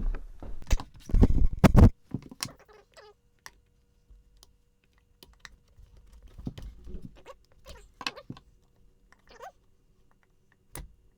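Hand tools and metal parts being handled, knocking and clinking: a cluster of loud knocks in the first two seconds, then scattered lighter clicks.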